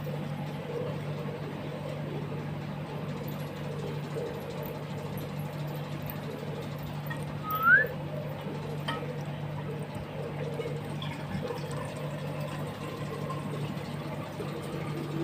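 A mongoose eats raw chicken from a steel bowl with faint occasional clicks over a steady low hum. About halfway through comes one short, rising, whistle-like chirp.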